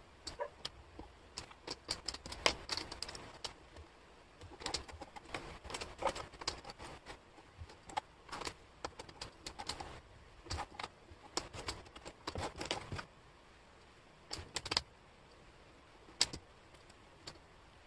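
Wooden jigsaw puzzle pieces clicking and clattering against each other and the tabletop as hands sort through them, in irregular bursts of small sharp taps with short pauses between.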